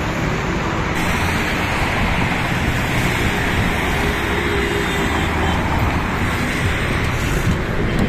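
Heavy, fast-moving highway traffic: a continuous wash of tyre and engine noise from many vehicles passing.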